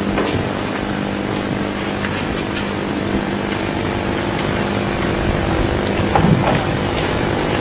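Steady background hum and hiss of an indoor tournament hall with a seated audience. A few faint knocks sound about six to seven seconds in.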